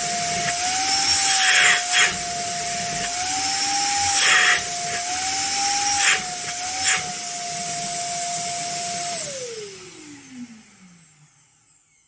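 Ideal HVC20 1200-watt wet-and-dry vacuum cleaner running with a steady high motor whine and air rush, with a few short bursts of noise. About nine seconds in it is switched off and the motor winds down, its pitch falling as it fades away.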